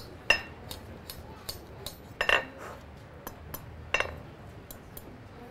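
Blacksmith's hammer striking a small bar of hot iron on an anvil: a few spaced, ringing blows, two of them close together, with lighter taps between, as the bar's end is bent over into a curl for a hook.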